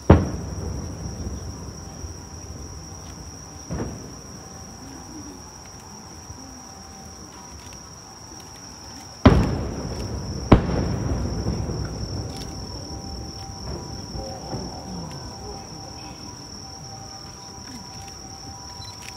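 Aerial firework shells bursting at a distance, each a sudden boom that rumbles away: one at the start, a weaker one a few seconds in, and two about a second apart near the middle. A steady high insect drone sits underneath.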